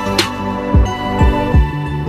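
Background music with a beat: held synth tones over deep kick drums, with a sharp hit just after the start.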